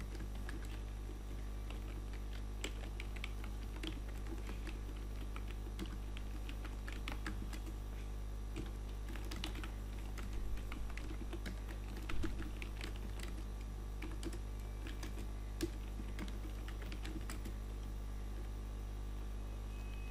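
Computer keyboard being typed on: irregular runs of key clicks with short pauses, over a steady low hum.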